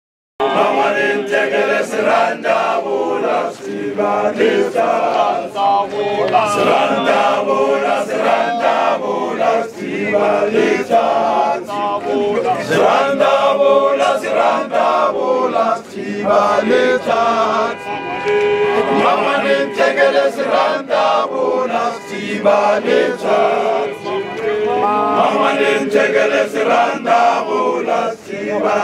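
ZCC mokhukhu men's choir singing a chant, many male voices together.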